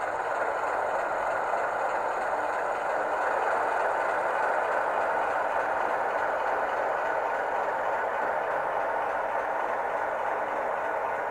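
H0-scale model V36 diesel locomotive running along the track: a steady running noise of its motor and wheels on the rails.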